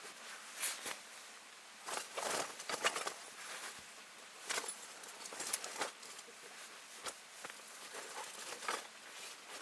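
Irregular rustling and scraping handling noises in short bursts, loudest around two to three seconds in, with a few light knocks.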